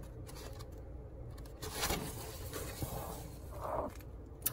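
Page of a picture book being turned by hand: a paper swish about two seconds in, a softer rustle a little later, and a short click near the end.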